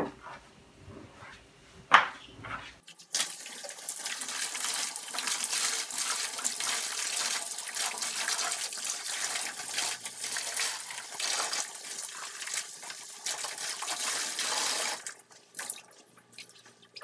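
Tap water running over an indigo-dyed silk scarf and splashing into a plastic bucket as the scarf is rinsed; the flow starts about three seconds in and stops near the end. A single sharp knock comes about two seconds in.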